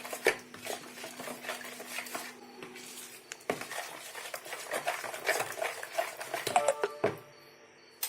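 Yeast, water and milk being stirred in a bowl, the utensil clinking and scraping against the bowl's sides in quick irregular strokes, with a couple of ringing clinks before it stops about seven seconds in.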